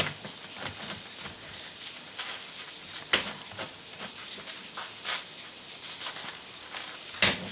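Plastic layers of a ShengShou 9x9 speedcube clicking and scraping as they are turned through an algorithm, with irregular clacks, a few sharper ones about three, five and seven seconds in.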